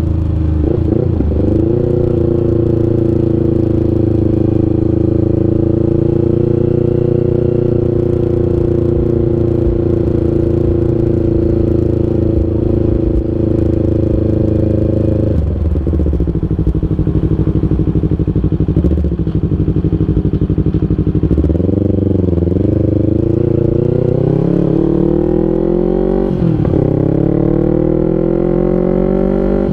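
Yamaha New MT-25's 250 cc parallel-twin engine running through an R9 H2 full-system aftermarket exhaust while riding. The revs hold steady for about the first fifteen seconds, then fall abruptly and rise and fall again several times.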